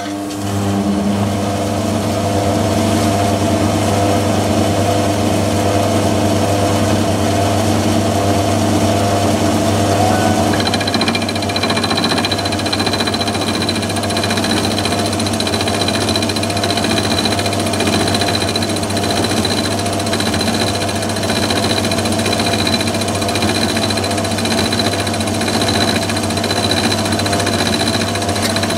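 Myford ML7 lathe running steadily, set up for milling, its motor and drive making a steady hum. About ten seconds in, a thin high whine joins it.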